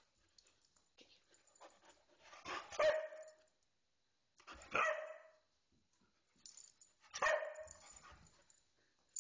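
A dog barking three times, about two seconds apart, during play chasing between two dogs, with light tapping and scuffling between the barks.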